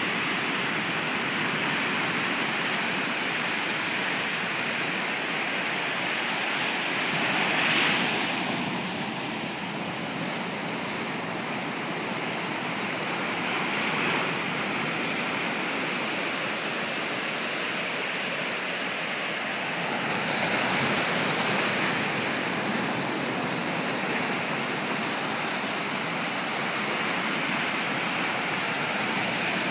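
Ocean surf breaking and washing up a sandy beach: a steady rush of noise that swells as bigger waves break, three times.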